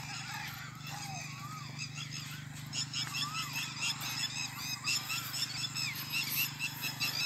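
Night chorus of frogs and insects in a field: many short chirps repeating rapidly, with a few rising-and-falling calls among them, over a steady low hum.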